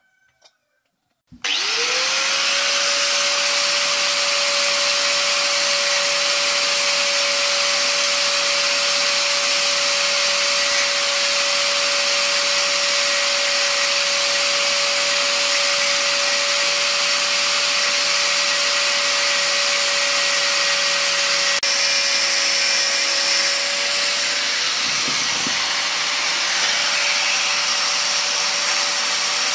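Electric angle grinder switched on about a second in, spinning up in a fraction of a second and then running steadily at full speed with no load, a constant high whine over a loud hiss.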